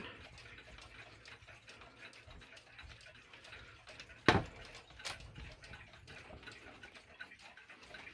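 Alaron Korean 31-day pendulum wall clock ticking faintly. One sharp, louder click comes about four seconds in, with a lighter one just after.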